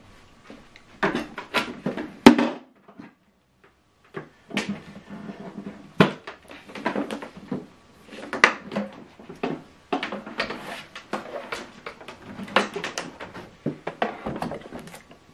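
Handling noise from a flat-screen TV and an HDMI cable being moved about on a table: scattered knocks, clicks and rustling, with one sharp click about two seconds in, a moment of quiet, then busy clattering and rustling as the TV is turned round.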